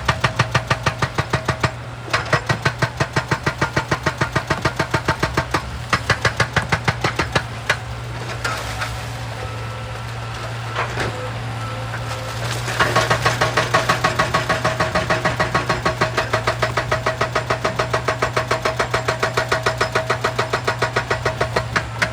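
Excavator-mounted hydraulic rock breaker hammering rock in rapid, even blows, several a second, over the steady running of the excavator's diesel engine. The hammering stops for about four seconds near the middle, leaving only the engine, then starts again.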